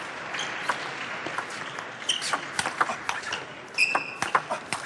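Table tennis rally: the celluloid ball clicking off the bats and table in an irregular run of sharp ticks over a low arena hum, with a short high squeak about four seconds in.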